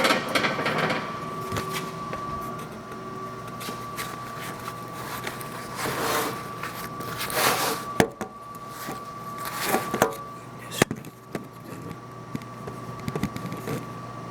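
Milford Model 310 riveting machine: its rapid run of riveting strokes stops about a second in, leaving the machine's electric motor humming steadily. Several separate knocks and short clattering noises follow at irregular intervals.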